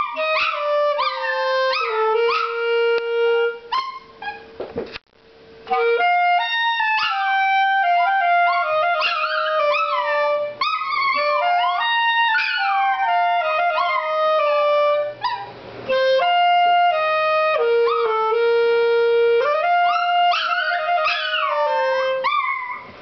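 A clarinet playing a slow melody in held notes while a Chihuahua howls and yips along in high, sliding, wavering cries. Both break off briefly with a click about five seconds in, then carry on.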